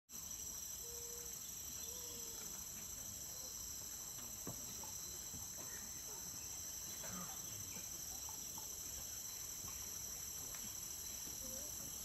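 Steady, high-pitched chorus of rainforest insects, unbroken throughout, with a faint tap about four and a half seconds in.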